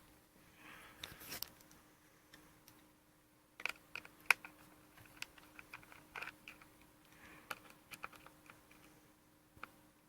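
Quiet, irregular small clicks and taps of a screwdriver and small screws against a MacBook Pro's open aluminium case, with one sharper tick a little before halfway.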